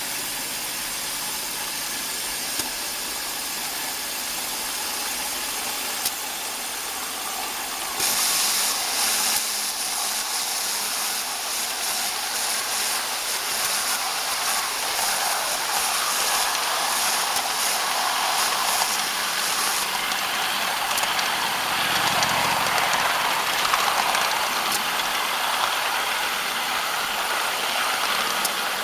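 Ride-on live steam locomotive hissing steam as it stands. About eight seconds in, a louder, sharper hiss starts suddenly, and the locomotive goes on with a steady noise as it runs along the track.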